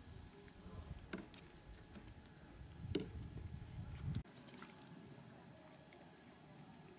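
Quiet outdoor background: a low rumble that stops abruptly a little over four seconds in, a few light clicks, and a quick run of high, falling chirps about two seconds in, with a couple more later, from a small bird.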